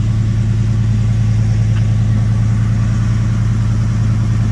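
1972 Ford F100's 360 V8 idling steadily.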